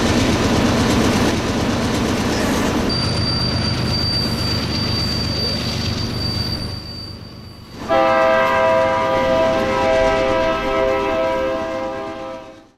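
An approaching train rumbling, with a high steady squeal for a few seconds. About eight seconds in a loud train horn blasts, several notes sounding together, held for about four seconds until it cuts off abruptly.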